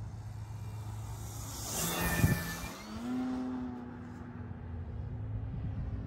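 Seagull Sport Cruiser RC model airplane passing by. Its motor and propeller noise swells to a loud whoosh about two seconds in, then settles into a steady motor tone as it flies on, over a low rumble.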